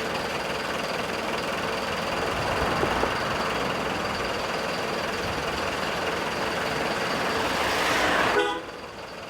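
Dubbed-in road vehicle sound effect: a steady rush of bus and traffic noise that cuts off suddenly near the end.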